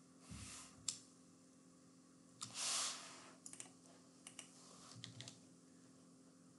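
Faint computer keyboard and mouse clicks: one sharp click about a second in, then small groups of clicks in the second half. Two short, soft rushes of noise, the louder one just before the middle, sit between them.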